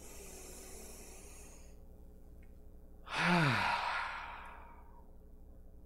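A man takes a long deep breath in, then about three seconds in lets it out as a voiced sigh that falls in pitch and trails off.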